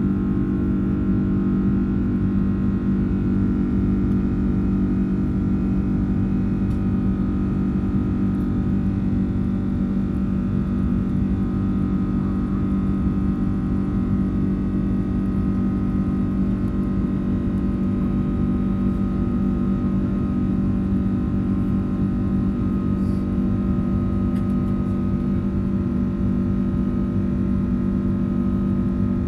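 Airbus A330 turbofan engines and airflow heard inside the cabin during the climb after takeoff: a steady loud drone with a strong low hum and several constant higher tones.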